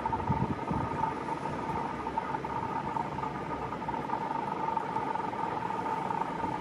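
W7 series Shinkansen train running, a steady rushing noise with a steady high whine.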